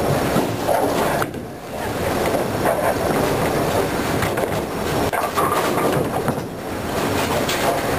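Bowling alley din: heavy bowling balls rolling down wooden lanes with a continuous rumble, mixed with the clatter of pins, dipping briefly about a second and a half in.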